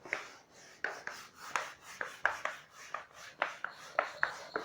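Writing on a board: a quick, irregular run of short scratching strokes, several with a brief high squeak.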